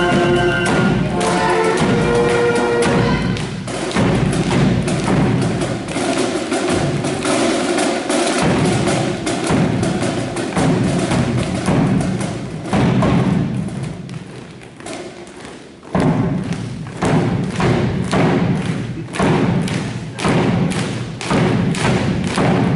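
Cadet marching band of brass and drums playing on the march. The brass tune ends about three seconds in, and the drums carry on alone in a steady marching beat. The drums fade briefly about two-thirds of the way through, then start up loudly again.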